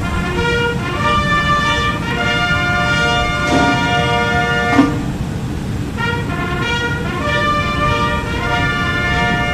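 Military brass band playing a national anthem in long held chords, with a short break about halfway, over a steady low rumble.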